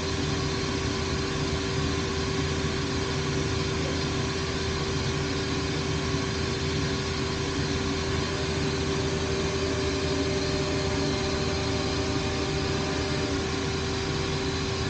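Steady hum of a Matsuura five-axis vertical machining center standing at rest with its motors, pumps and fans running: one constant tone over an even hiss, with no cutting or axis movement.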